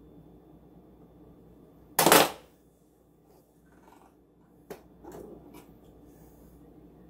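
Kitchen utensils clattering as they are handled: one loud clatter about two seconds in, then a sharp click and a shorter rattle later on.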